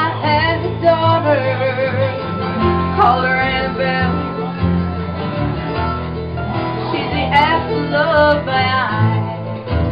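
A small acoustic band playing live: strummed acoustic guitars and other plucked strings under singing voices, with sung phrases near the start, around three to four seconds in, and again toward the end.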